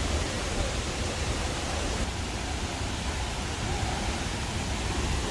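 Steady rushing of the La Fortuna waterfall and its river: an even, unbroken wash of water noise with a strong low rumble.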